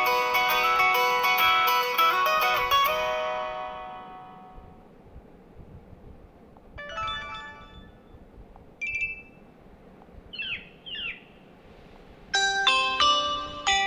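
MIUI 12 phone tones played one after another. A plucked, guitar-like ringtone melody fades out over the first few seconds. Then come short notification sounds: a brief chime, a short tone and two quick chirping sweeps, and near the end a new melodic tone with repeated notes begins.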